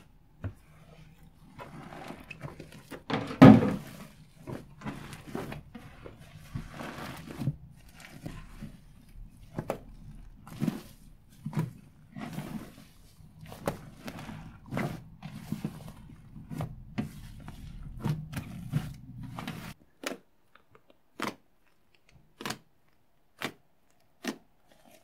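Fluffy shaving-foam slime worked by hand, stretched, squeezed and pressed, making irregular squelches, pops and crackles, the loudest about three and a half seconds in. From about 20 seconds in, single sharp pops come about once a second as fingertips press into the slime.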